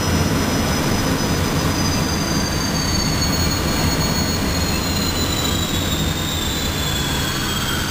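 Pratt & Whitney JT12 (J60) jet engine running, heard from inside the cockpit: a steady low rumble under several high compressor whines. One whine falls in pitch through the second half as the engine spools back toward idle.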